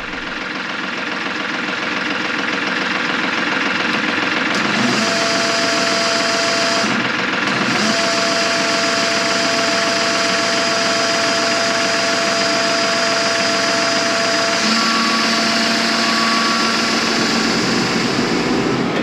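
Engine running steadily with mechanical noise, growing louder over the first few seconds. A steady whine sets in about five seconds in, breaks off briefly, then returns and changes pitch near the end.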